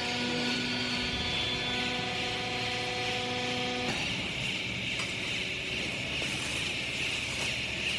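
Hydraulic baler's motor and pump running with a steady hum that cuts off about four seconds in, leaving a steady hiss.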